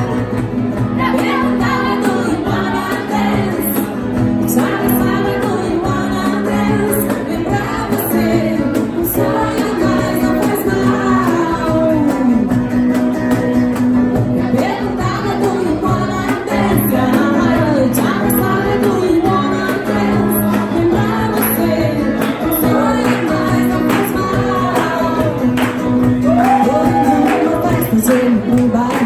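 Live band playing an upbeat pop-rock song: a woman sings lead over electric guitar and cajón percussion with cymbal hits, at a steady beat throughout.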